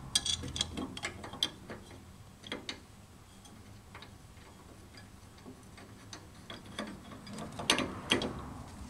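Scattered small metallic clicks and taps from a Triumph Spitfire Mk3 door striker plate and its new bolts being handled and started by hand against the door pillar. There is a run of clicks in the first second and a half, a few more in the middle, and the loudest clicks come near the end.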